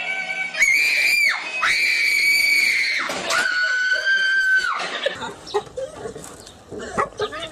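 Three long, high-pitched human screams in quick succession, each held at a steady pitch, the third a little lower. They are followed by scattered knocks and scuffling.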